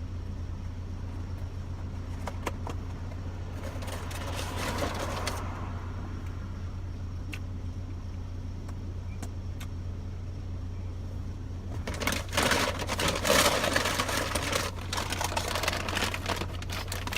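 Steady low hum of an idling car heard inside the cabin, with paper and plastic food packaging rustling and crinkling briefly about 4 s in and again, louder, from about 12 s on.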